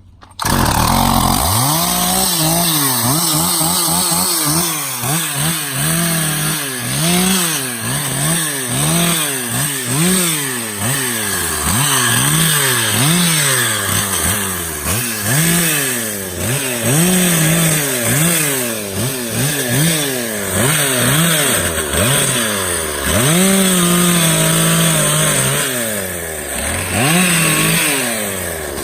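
Stihl two-stroke chainsaw cutting through oak limb wood. Its engine pitch rises and falls about once a second as the throttle is worked and the chain loads up in the cut, starting abruptly just after the beginning.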